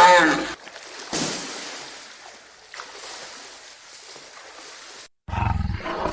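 Large wild animal calls: a loud call falling in pitch at the start, then a long breathy, hissing sound that fades away, and after a sudden cut a deep rumbling call near the end.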